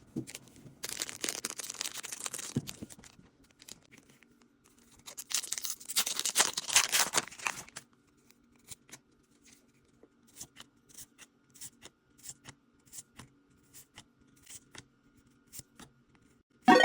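Foil booster-pack wrapper being torn open in two long rips. The cards are then flicked through one by one, a string of soft clicks about twice a second.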